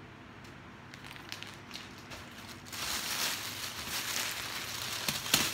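Plastic packaging crinkling and rustling as it is handled, starting about halfway in, with one sharp louder crackle near the end.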